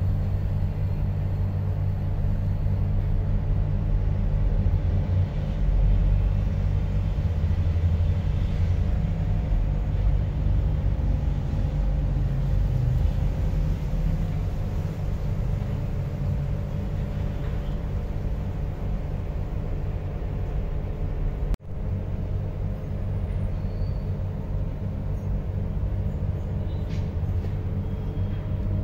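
Steady low background rumble with a faint hum, broken by a brief dropout about three-quarters of the way through.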